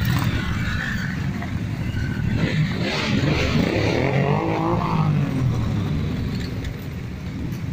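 A procession of motorcycles riding slowly past, their engines running at low speed. The sound grows louder with a rising and falling engine note around the middle as one bike goes by close.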